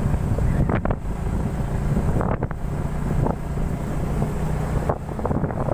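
Wind buffeting the microphone, a heavy low rumble over the steady hum of a running vehicle engine.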